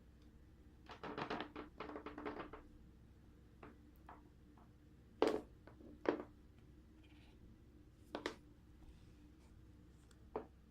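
A quick run of light taps about a second in, then single sharp knocks every couple of seconds, over a low steady hum.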